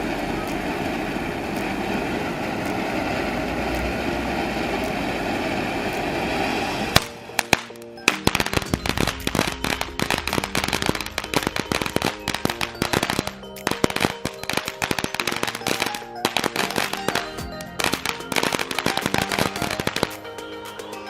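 Ground firework fountain spraying with a steady hiss for about seven seconds, then a rapid string of sharp crackling pops that goes on until near the end. Music plays underneath.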